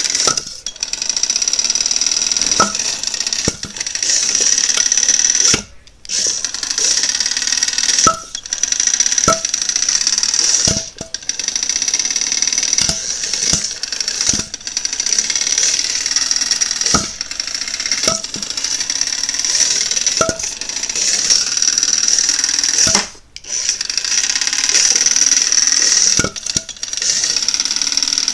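Hexbug Tombstone toy robot's small spinner motor whining at high pitch as it spins its 3D-printed asymmetric blade, the whine cutting out briefly twice. Sharp knocks come about once a second as the blade strikes.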